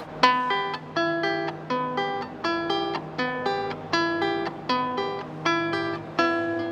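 Venezuelan cuatro strummed in a steady rhythm, a chord struck about every three-quarters of a second.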